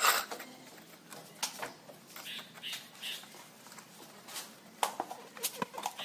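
Scattered knocks and clicks of steel rebar and a metal bending pipe against a nailed wooden jig board as a reinforcement ring is bent by hand.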